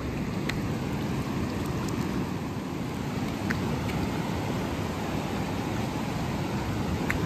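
River water rushing, a steady, even noise.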